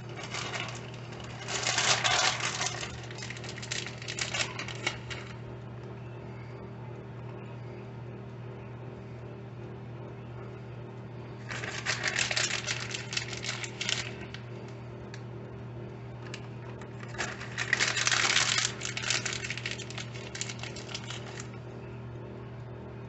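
A plastic bag of shredded mozzarella crinkling and rustling in three bursts of a few seconds each as handfuls of cheese are pulled out and sprinkled over a pizza. A steady low hum runs underneath.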